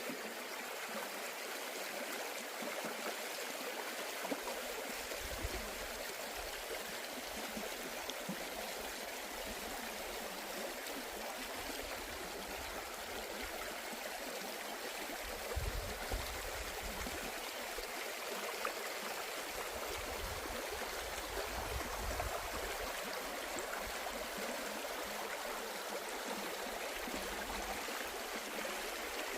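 Forest stream flowing steadily over rocks, an even rush of running water, with a few brief low rumbles now and then.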